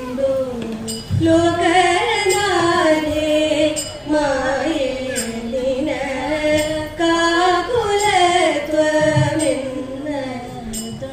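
A group of women singing a Thiruvathira (Thiruvathirakali) song together: a slow Malayalam melody in drawn-out, swaying phrases, sung to accompany the Thiruvathira circle dance.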